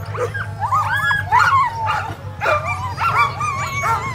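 A sled dog team yelping and barking, many dogs at once in overlapping high-pitched yips as they are brought up to the start line, over a steady low hum.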